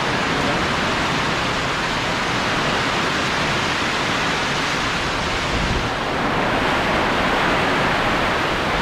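Heavy rainstorm: a steady, dense hiss of pouring rain driven by strong wind, with a brief low rumble about five and a half seconds in.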